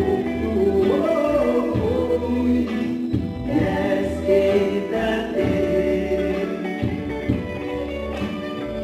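Gospel song playing from a recorded album track, with a man's voice singing the melody over a steady bass line.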